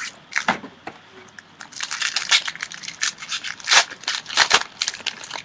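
Trading-card pack wrapper being torn open and crinkled by hand: an irregular run of crackling rustles, loudest in the second half.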